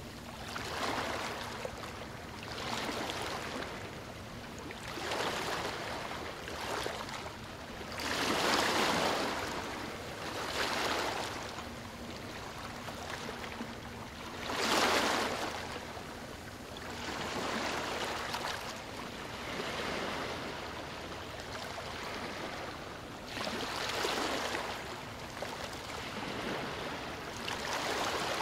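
Small sea waves lapping and splashing close by, swelling and falling about every two seconds, loudest around nine and fifteen seconds in.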